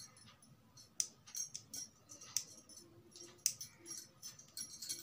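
Bangles on a woman's wrists clinking and jingling as her hands move over fabric: about a dozen light metallic clinks spread irregularly, each with a brief high ring.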